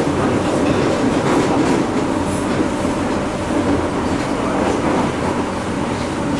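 London Underground train running: a steady loud rumble with clatter of wheels on the rails.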